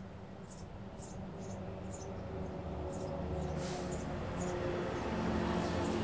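Sparrow nestling begging from inside a birdhouse while a parent feeds it at the entrance hole: thin, squeaky, high-pitched chirps repeating about twice a second. Under them is a low, steady hum that slowly grows louder.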